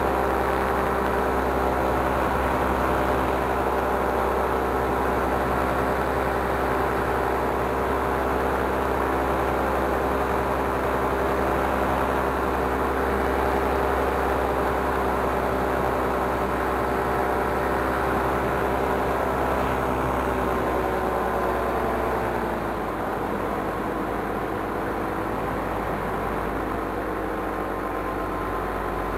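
Paramotor engine and propeller running steadily at cruise throttle. About 21 seconds in the pitch slides down as the throttle is eased back, and it runs on a little quieter.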